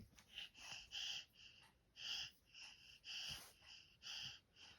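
A small child breathing fast and hard, a string of short, breathy puffs coming a couple of times a second, as after a long bout of laughing.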